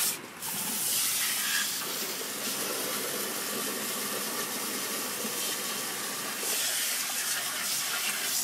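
Garden hose pistol-grip spray nozzle hissing steadily as it shoots a jet of water into the soil of a trench cut in a concrete floor. It opens with a short, louder burst as the spray starts.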